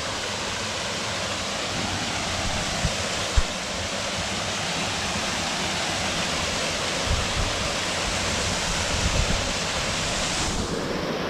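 Waterfall rushing, a steady full wash of falling water. There is a single sharp knock about three and a half seconds in, and the rush turns duller just before the end.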